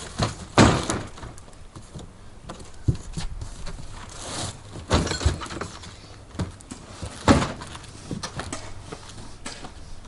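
Knocks, clatter and scraping as a folding pop-up canopy frame is handled and set up, with the loudest knocks about half a second in and about seven seconds in.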